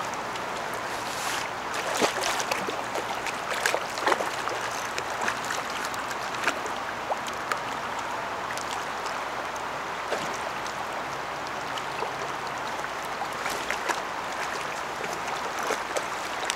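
Flowing river water with irregular sharp splashes as a hooked chinook salmon thrashes and rolls at the surface while being played.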